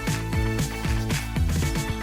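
Background music with a steady beat, a bass line and guitar.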